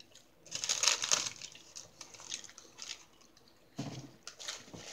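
Crinkling of paper fast-food wrappers and crunching while eating fried chicken sandwiches: a loud crackly rustle about half a second in, a few soft clicks, then another short rustle near the end.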